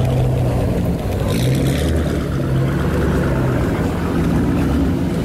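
Car engines running low and steady as cars pull away slowly one after another, a black Ford Mustang driving past close by.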